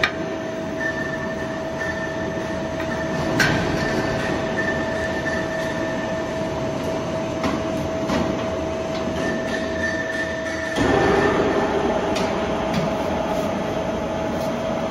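J channel roll forming machine running, its roller stations forming metal strip, with a steady hum and one constant whine. A sharp click comes about three and a half seconds in, and about eleven seconds in the running gets louder and rougher.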